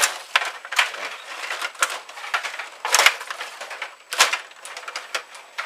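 Table hockey game in play: hard plastic clacking and rattling as the rod-driven players are pushed and spun and strike the puck. The clicks are irregular, with louder knocks just after the start, about three seconds in and a little after four seconds.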